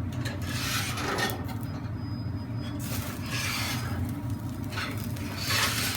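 Gas burners of a commercial grill running on full with a steady low rush, while metal skewers of lamb are set down on its cast-iron rods, each giving a short scraping hiss.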